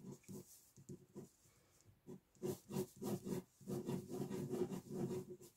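A pen scratching on a sketchbook page in quick, short, repeated sketching strokes.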